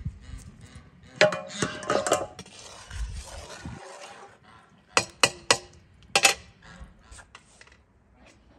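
A long metal spoon stirring liquid in a large aluminium pot, scraping and clinking against the metal. There are four sharp clinks about two-thirds of the way in.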